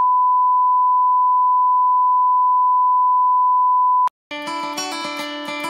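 Steady 1 kHz line-up test tone accompanying broadcast colour bars, a single loud unwavering beep that cuts off suddenly about four seconds in. After a brief silence, music starts near the end.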